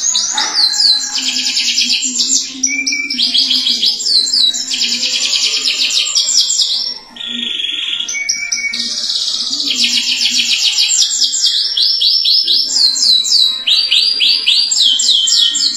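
Domestic canary singing long, fast rolling trills, high-pitched and rapidly repeated, with one short break about seven seconds in.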